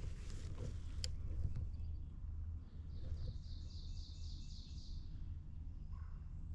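Wind rumbling steadily on the microphone. About three seconds in, a small songbird sings a quick run of about ten high, repeated notes lasting about two seconds.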